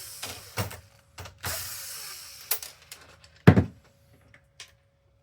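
Clicks and knocks of small hard parts being handled, with a short whir from a small electric motor about one and a half seconds in that fades away, and a sharp knock, the loudest sound, about three and a half seconds in.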